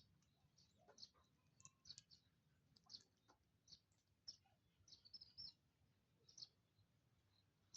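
Faint, short, high chirps from small birds, a dozen or so scattered irregularly over a low background hum.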